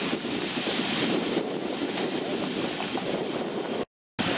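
Wind buffeting the microphone: a steady, fluttering rush of noise with no clear engine tone. It cuts out briefly near the end.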